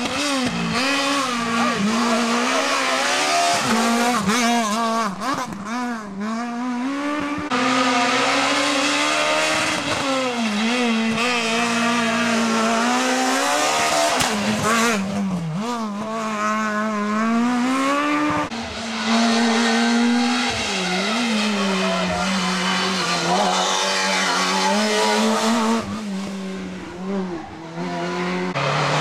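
Rally cars, among them Renault Clios, going through a stage one after another, their engines revving hard and dropping again and again as they shift gears and brake for the bends, with tyres squealing.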